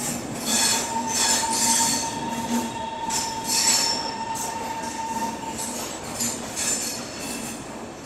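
Indian Railways express train pulling out of a station, heard from a coach doorway: continuous wheel-on-rail running noise with a steady, high wheel squeal that fades out about five and a half seconds in, plus scattered high-pitched screeches.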